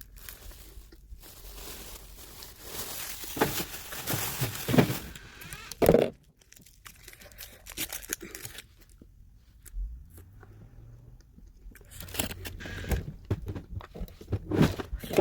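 Close eating and handling noises: crunching, crinkling and tearing come in bursts with quiet gaps, and a run of sharp clicks near the end.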